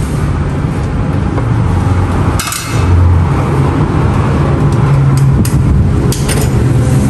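A steady, loud low hum, with a few sharp clicks and knocks as hands work the plastic cut-out fuse holders in the meter box.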